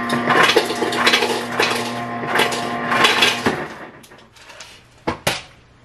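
Kitchen clatter of dishes and cutlery being handled on a counter, over a steady electric hum that stops about three and a half seconds in. Two sharp clicks follow near the end.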